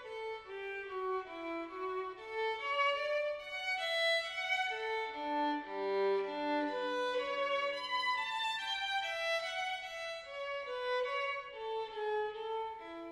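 Background music: a violin playing a flowing melody, with one long low note held about halfway through.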